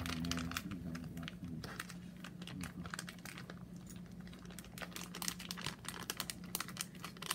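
Crinkling of a foil MRE entree pouch being handled, a dense run of small irregular crackles, over a steady low hum.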